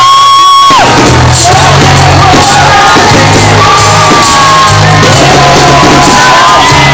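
Very loud music with a singing voice over a steady bass beat; a long held sung note breaks off about a second in.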